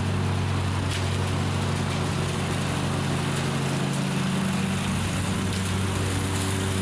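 Cub Cadet XT1 riding mower running steadily with its deck engaged, mowing up leaves into the rear bagger: a constant low engine drone over a noisy rush.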